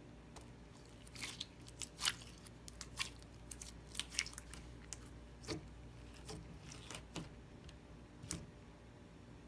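Slime being pressed and poked by hand, giving irregular sticky clicks, crackles and small pops.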